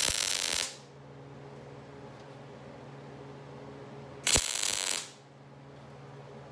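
MIG welding arc in two short bursts about four seconds apart, each under a second long: welds joining a drilled steel panel to a sheet-steel sculpture wing, over a steady low hum.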